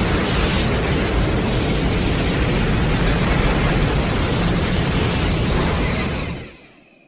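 A loud, steady rushing noise with no clear pitch, like a rumble or blast, that fades out quickly near the end.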